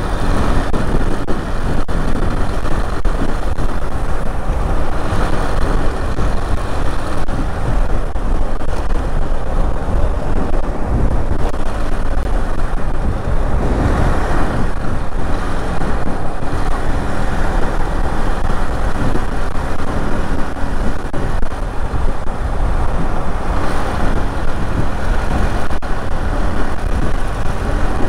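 Motorcycle ride at about 60 km/h: the engine runs steadily under a dense, loud rush of wind and road noise, strongest in the low rumble.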